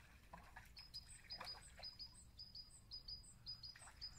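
Faint songbird singing: a thin, high phrase of short notes repeated about twice a second, from about a second in.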